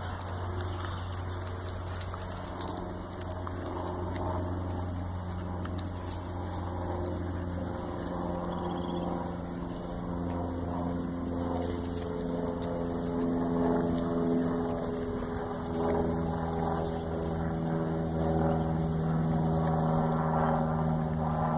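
Steady drone of a running motor, a low hum with several overtones that drift slightly in pitch, a little louder in the second half.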